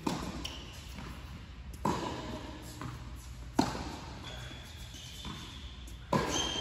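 Tennis ball hit back and forth in a baseline rally: four sharp pops of ball on racket strings about two seconds apart, the loudest about three and a half seconds in. Each pop rings on briefly in the large indoor tennis hall.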